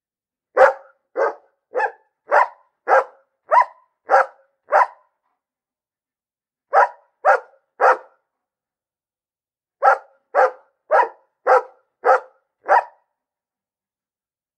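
A single dog barking in quick, evenly paced runs of about two barks a second: eight barks, a pause, three barks, another pause, then seven more.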